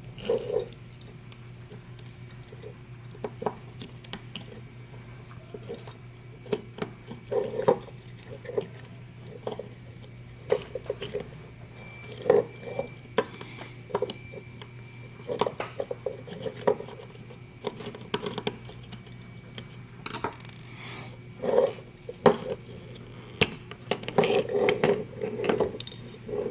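Irregular clicks, taps and clinks of small metal and plastic parts and hand tools being handled while a security camera is taken apart, over a steady low hum.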